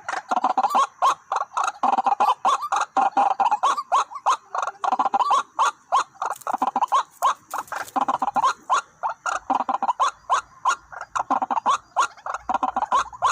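White-breasted waterhens calling in a rapid, continuous run of harsh repeated notes, with sharp clicks among them.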